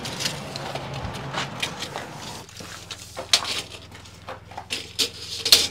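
Footsteps on a gritty concrete floor with a few light knocks and scrapes, the sharpest ones coming in a cluster near the end.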